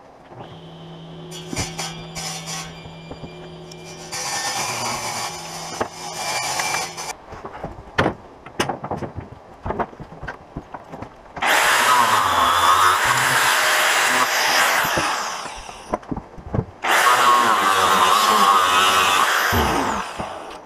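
Angle grinder running in bursts, a short one and then two long runs of several seconds each, cutting; after the last run it winds down with a falling whine.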